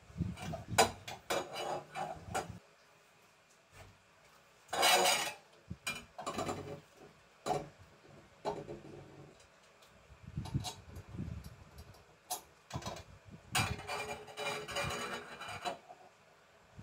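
White metal adjustable clothes rail being handled and fitted to its wall brackets: irregular clinks and knocks of the metal tube, with short scrapes and rubbing as the parts slide and seat. A louder scrape comes about five seconds in and a longer spell of rubbing near the end.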